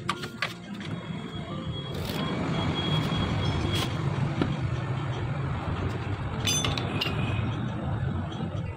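Hand socket ratchet clicking and metal clinking as wheel nuts are run onto the studs of a steel wheel, with a quick run of ratchet clicks about two-thirds of the way through, over a steady low rumble.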